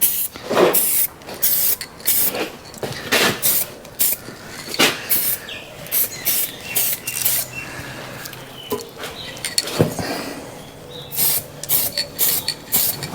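Short hissing bursts of aerosol caliper paint being sprayed onto masked scooter brake calipers, several bursts a second with short pauses between.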